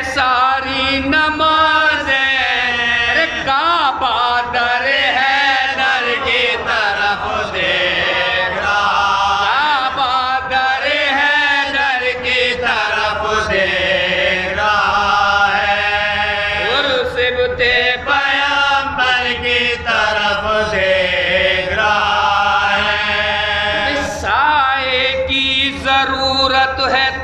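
Unaccompanied soz-o-salam recitation: men's voices chanting an Urdu marsiya lament in a wavering, ornamented melody. The lead reciter sings without pause, with the men seated beside him joining in.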